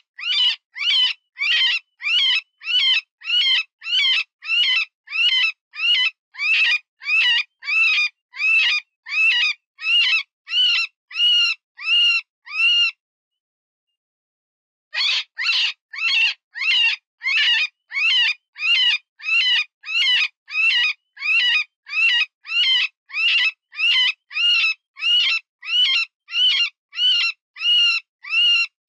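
Cottontail rabbit distress call used as a predator lure: loud, wavering squeals repeated about twice a second, broken by a pause of about two seconds near the middle before the squealing resumes.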